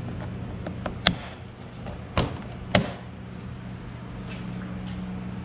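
Three sharp plastic snaps over about two seconds as pop-tab fasteners and a plastic body panel of a Yamaha Kodiak 700 ATV are pried loose, over a steady low hum.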